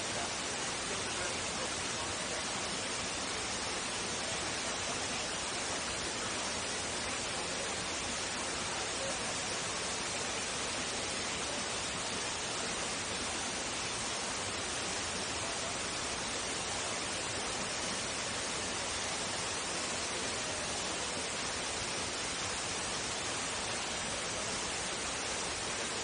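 Greeter Falls, a waterfall, rushing: a steady, even hiss that does not change.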